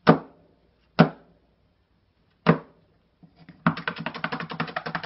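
Three sharp single knocks, the first at the start, the next about a second in and the last about two and a half seconds in. About a second and a half later a fast, even clatter of clicks begins, roughly a dozen a second, and runs on to the end.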